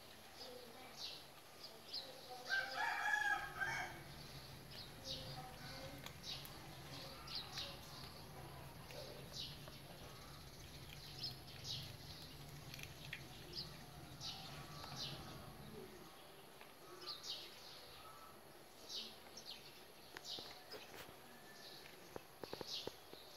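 A rooster crows once, loudly, about two and a half seconds in, over short high chirps repeating throughout and a low hum that stops about two-thirds of the way through.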